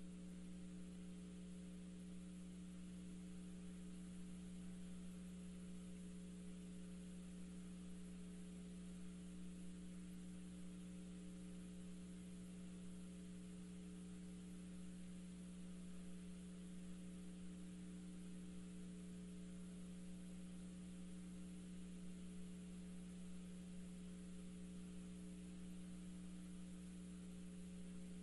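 Faint steady low hum with an even background hiss, unchanging throughout: line hum on the audio feed, with no other sound.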